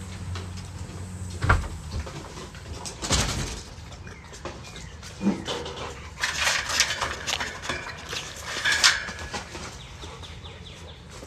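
American Bully dog close to the microphone, making a run of rough noises with its nose and mouth. There are a couple of knocks early on.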